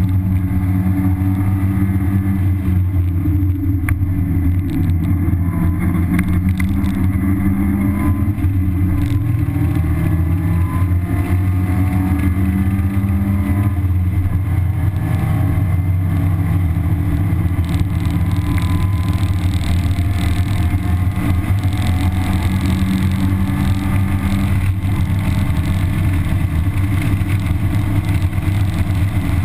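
1991 Mazda Miata's 1.6-litre four-cylinder engine with stock exhaust and intake, heard from inside the cabin under hard track driving. Its pitch shifts up and down several times with throttle and gear changes, over steady wind and road noise.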